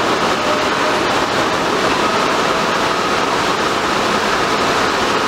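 R142A subway train pulling out of the station: a steady rumble of wheels on rails with a high, steady whine.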